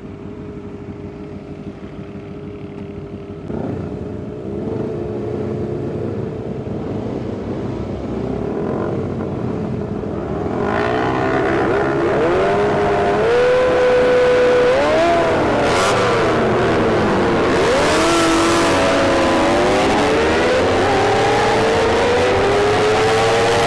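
250 cc sport motorcycle engine running low and steady at first, then accelerating hard from about ten seconds in. It revs up through the gears, the pitch climbing and dropping back at each upshift.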